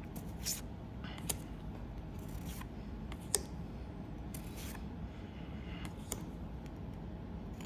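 Basketball trading cards being handled: a few light clicks and short sliding swishes of cards against each other, the loudest a little over three seconds in, over a low steady hum.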